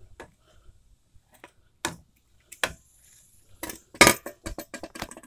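Scattered metal clinks and knocks from handling a car's front strut assembly and its coil spring held in spring compressors, with a quick run of sharp clanks about four seconds in.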